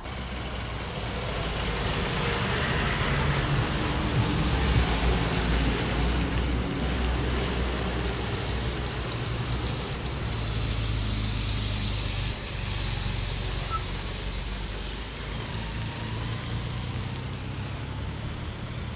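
Heavy diesel goods trucks coming slowly down round a hairpin bend: a steady low engine drone with a hiss above it, building to its loudest about five seconds in.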